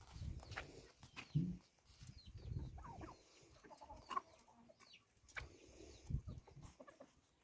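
Chickens clucking and chirping, with a few scattered dull thuds.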